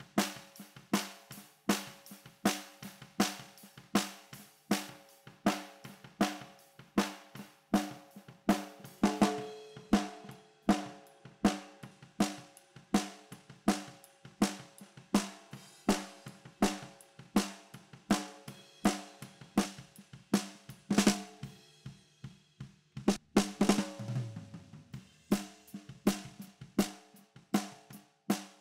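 Recorded acoustic drum kit playing a steady groove of kick, snare, hi-hat and cymbals, run through the Vertigo Sound VSM-4 harmonic saturation plugin. A little past twenty seconds the beat breaks off briefly, then comes back with a heavy hit that leaves a low ring.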